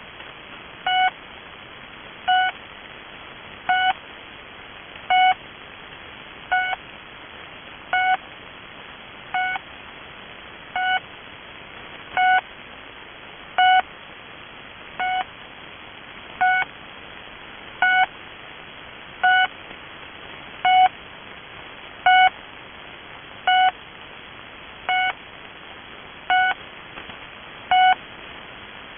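Russian military channel marker 'The Pip' on 3756 kHz, heard through a shortwave receiver in double sideband: a short beep repeating evenly about every second and a half over steady band hiss. The marker holds the frequency for Russian military voice communications.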